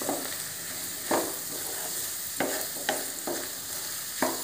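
Wooden spatula stirring and scraping sauce-coated vegetables and scrambled egg in a non-stick kadai, over a steady sizzle of frying, with a few sharp knocks and scrapes of the spatula against the pan.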